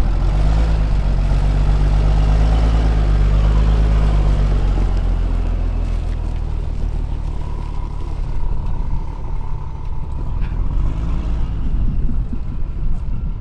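Large off-road wrecker's diesel engine pulling away under throttle, its deep note rising over the first few seconds, then fading to a rougher rumble of tyres on gravel as the truck drives off. A thin steady whine joins in about seven seconds in.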